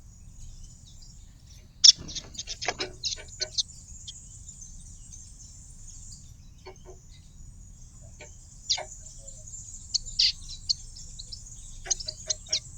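Small birds at a garden feeder: sharp chirps and clicks, a quick run of them about two seconds in and scattered ones later, over a steady faint high hiss.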